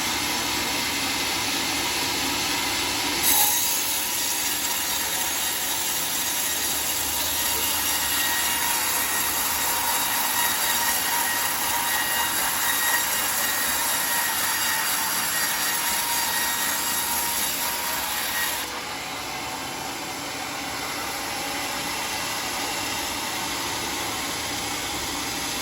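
Circular-blade sawmill running and sawing through a teak log. The cut's harsher, higher-pitched noise sets in sharply about three seconds in and eases off about three-quarters of the way through, leaving the saw running more quietly.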